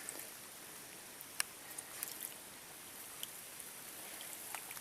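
Faint dripping and trickling water with a few small scattered ticks, the sharpest about a second and a half in, as a baited turtle line is drawn in from a pond.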